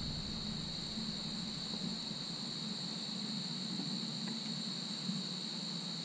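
Steady chorus of insects trilling continuously at two high pitches, with a low steady hum underneath.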